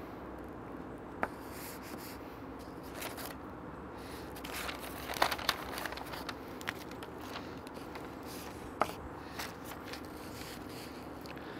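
Paper crinkling and rustling with a few sharp clicks and light scrapes, as smoked beef ribs are handled and wrapped in butcher paper, over a steady low hum.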